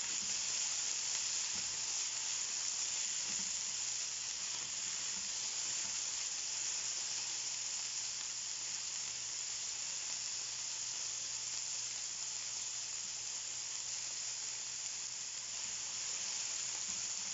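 Chicken pieces sizzling steadily in olive oil in a nonstick pan over a low flame, as they are turned with a silicone spatula.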